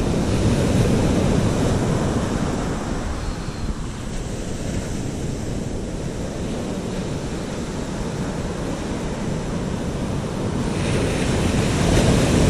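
Ocean surf breaking and washing up the beach, mixed with wind buffeting the microphone; the wash swells louder near the end.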